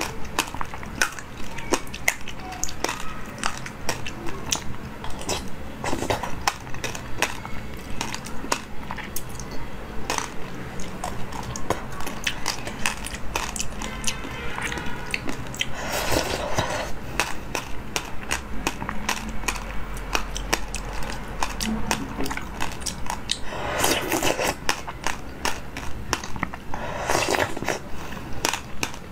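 Close-up eating sounds: a metal spoon clinking and scraping in a glass bowl, wet slurps of jelly topped with passion fruit pulp, and a dense crackle of seeds being chewed, with a few louder slurps.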